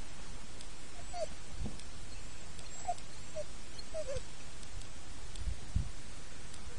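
Outdoor ambience: steady hiss with faint scattered clicks, and four short animal calls falling in pitch between about one and four seconds in.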